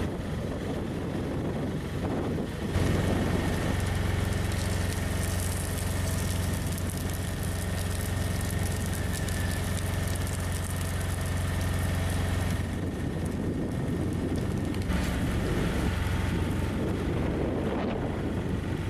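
Heavy road-construction machinery running steadily with a deep engine hum, the sound changing abruptly about 3, 13 and 15 seconds in.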